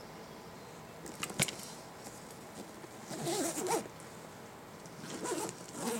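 Zipper on a motorcycle sissybar bag's main compartment being pulled shut in a few short rasping strokes, with a sharp click about a second and a half in.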